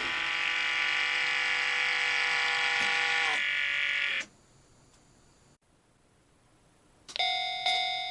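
O-gauge model railroad crossing signal's warning bell: a steady ringing of several tones cuts off about four seconds in. After a few seconds of near silence it starts striking again, about two dings a second, near the end.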